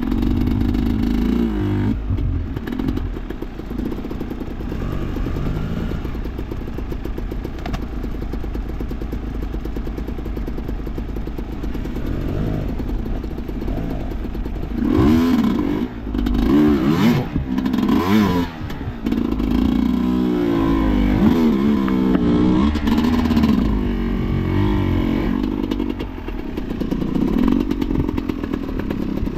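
Enduro dirt-bike engine running at low revs, then revved hard in repeated rising and falling bursts from about halfway through, as on a slippery off-road climb.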